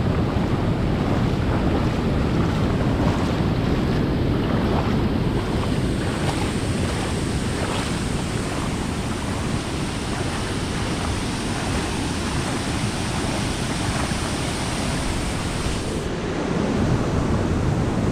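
Floodwater rushing steadily across a flooded dirt road, a loud continuous wash of water noise, brighter and hissier from about five seconds in until about sixteen seconds in.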